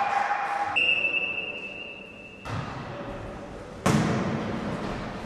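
A referee's whistle gives one long, steady blast lasting about a second and a half, then a volleyball is struck twice with sharp smacks. The second hit, about four seconds in, is the loudest, and both echo in the sports hall.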